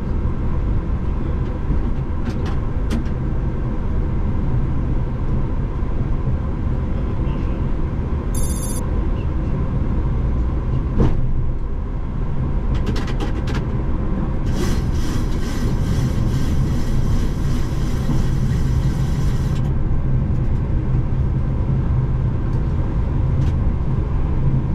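Steady low rumble in the cockpit of a Boeing 737-800 rolling out along the runway and turning off after landing. A few sharp clicks come through, a brief high electronic tone about eight seconds in, and a high layered whine for about five seconds after the flaps are set to retract.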